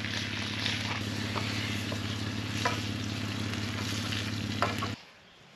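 Bacon sizzling in a frying pan over a campfire, a steady hiss with a few light clicks of a utensil in the pan. The sizzle cuts off suddenly about five seconds in.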